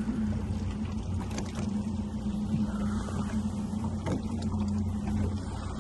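Boat engine running steadily, a low, even hum.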